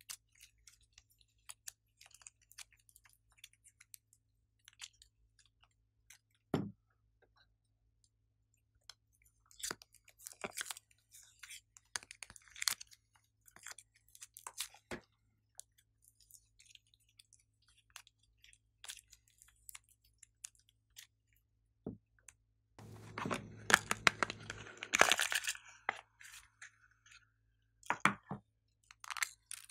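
Hands squishing and handling soft clay and slime, giving scattered small clicks and crackles with quiet gaps between. A single soft thud comes about a quarter of the way in, and about three quarters through there is a denser, louder stretch of crackly squishing.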